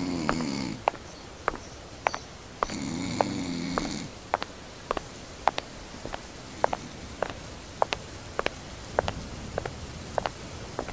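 A sleeping person snoring twice, each snore about a second long, the second starting near the three-second mark. Sharp irregular clicks, one or two a second, continue throughout.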